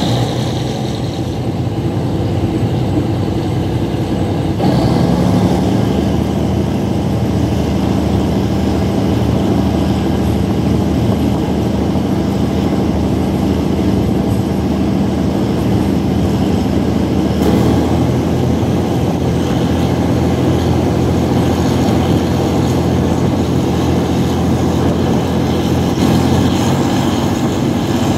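GE diesel-electric locomotive No. 4044's engine running under power as the train pulls away and gathers speed. The engine note steps up about five seconds in and changes again about two-thirds of the way through.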